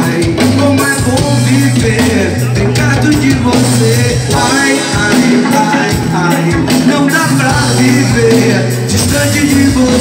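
Live reggae band playing loud, with electric guitars, keyboard, drums and a bass line of held low notes.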